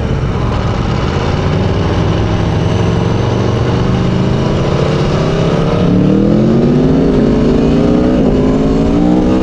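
Aprilia Tuono V4 motorcycle engine under the rider, running steadily at first, then rising in pitch as it accelerates hard. The pitch drops at an upshift about eight seconds in, then climbs again.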